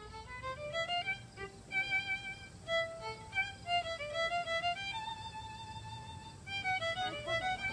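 Solo violin playing a slow melody of single held notes, with slides between some of them.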